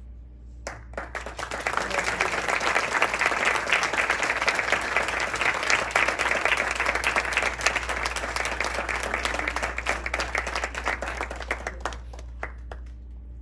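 An audience applauding. The clapping starts about a second in, swells to a dense sustained applause, then dies away into a few scattered last claps near the end.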